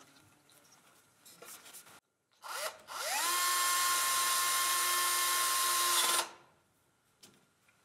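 Faint handling and rubbing, then a cordless drill spins up with a quickly rising whine, runs at one steady speed for about three seconds and stops abruptly.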